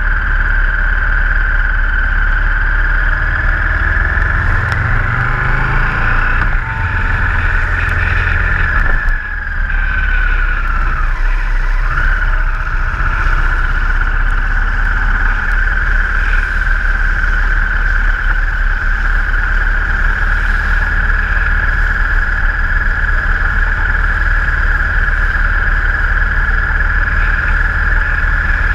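Motorcycle riding at steady road speed, heard from a bike-mounted camera: engine drone under heavy wind noise on the microphone. The pitch drops briefly about ten seconds in, then settles again.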